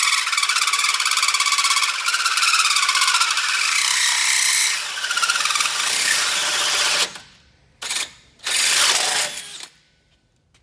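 Cordless drill turning a hole saw through steel chassis metal, a steady high-pitched squeal of the cutting teeth for about seven seconds. It then stops and is followed by two short bursts of drilling.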